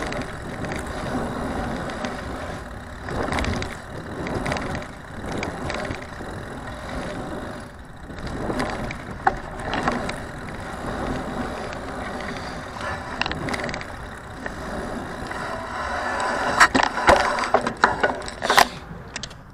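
A bicycle riding a pump track: tyres rolling over the rollers and round the berms, the rushing noise swelling and fading with each rise and dip. Near the end come a run of sharp rattles and clicks from the bike, the loudest part.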